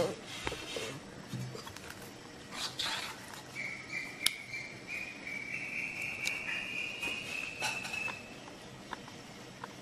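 Light scattered clicks and taps, as of a spoon working soft batter on a banana leaf, with a thin high steady trill that starts about three and a half seconds in, rises a little in pitch and stops about four seconds later.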